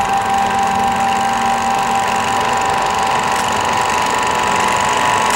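Steady electrical buzz and hiss from a VHS tape transfer, with the last low note of the closing music dying away about two seconds in.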